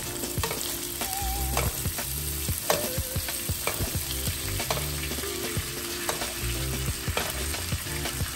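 Ribeye steak sizzling steadily in a frying pan of hot pan juices and fat as it is basted with a metal spoon, with frequent short sharp clicks and pops.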